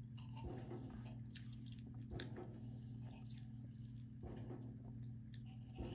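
Sparkling water being sipped through a straw: faint, scattered wet mouth clicks and swallowing sounds over a steady low hum.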